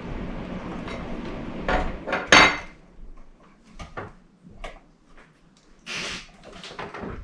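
Light clicks and clinks of small metal and glass chandelier parts being handled while wire is threaded through them, with a louder clatter about two seconds in.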